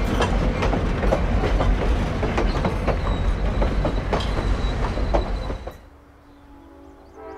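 Passenger train rolling close past, with a heavy rumble and irregular clacks of wheels over rail joints, and a thin wheel squeal for a moment about three seconds in. The sound cuts off suddenly about six seconds in, leaving it much quieter, and music starts right at the end.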